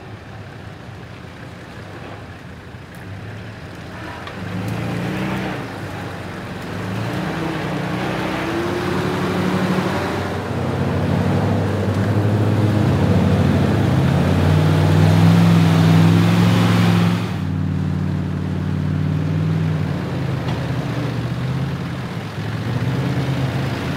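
Four-wheel-drive engines revving and labouring as the vehicles crawl through a muddy, water-filled rut, with tyres churning mud and water. The sound grows louder as they come closer, then drops suddenly about two-thirds of the way in.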